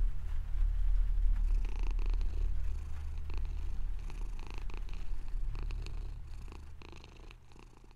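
Low, fluttering electronic drone with crackles and shimmering higher tones over it, fading out over the last few seconds.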